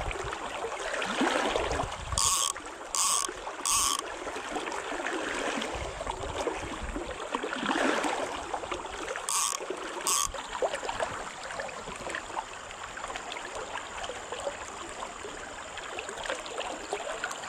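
River water rushing and trickling steadily around a wading angler. Over it come five short buzzes from a click-pawl fly reel, a Redington Zero, as line is pulled off it: three about two to four seconds in and two more near ten seconds.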